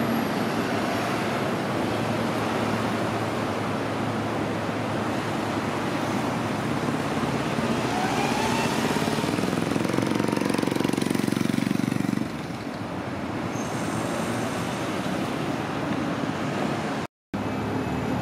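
Road traffic passing close at a city intersection: engines and tyres running steadily. About eight seconds in a vehicle's engine revs up as it pulls away, and a heavier engine sound stops abruptly a few seconds later.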